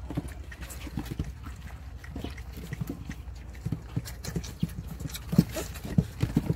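Puppies about 26 days old, German shepherd × Belgian crosses, lapping milk from a plastic basin: quick, irregular wet lapping clicks that grow busier and louder in the last second and a half.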